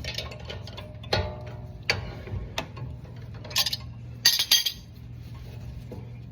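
Wrench and socket clinking on a Toyota Tundra's front brake caliper, with two short runs of rapid ratchet clicking near the middle as the caliper's 19 mm bolt is turned out. One clink about a second in rings briefly. A steady low hum runs underneath.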